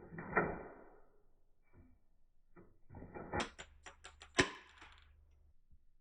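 Hard plastic clicks and clacks from handling a toy Glock 18 pistol: a short clatter just after the start, then a quick run of clicks about three seconds in, ending in one sharp, loud click.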